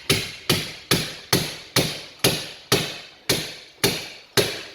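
Glue-pull slide hammer striking its stop again and again, yanking a hot-glued tab to pull a dent out of a car door panel. About ten sharp clacks, roughly two a second, each ringing briefly.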